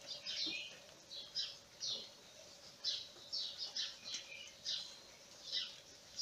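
Young kittens mewing in short, high-pitched squeaks that fall in pitch, one or two a second without a break.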